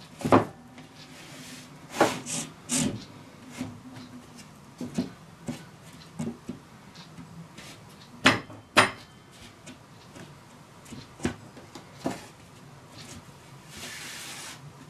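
Plywood panels knocking and rubbing as a glued-up tool chest carcass is handled and its panels are pushed into place: scattered wooden knocks and taps, with a pair of sharp knocks about eight seconds in and a brief hiss near the end.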